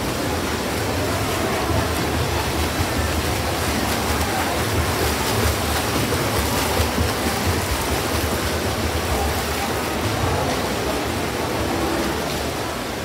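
Freestyle swimmers racing in several lanes of an indoor pool, their arm strokes and kicks making a steady wash of splashing water.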